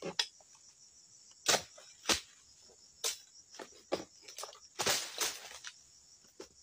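Sharp, irregular chops of a long-poled harvesting blade cutting into the frond stalks at the crown of an oil palm, about ten strikes. Steady high insect chirring runs underneath.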